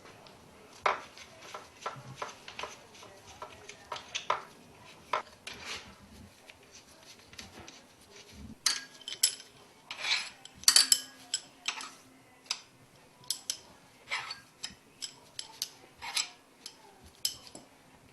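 Irregular metallic clinks and knocks of hand tools and parts on an air-cooled Porsche 911 flat-six crankcase being dismantled, with a cluster of louder knocks about ten to eleven seconds in.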